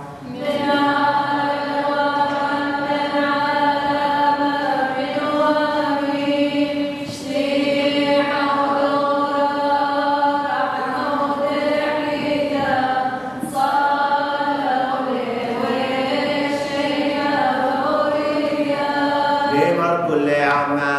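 Liturgical chant: voices singing long held notes, pausing briefly a couple of times between phrases.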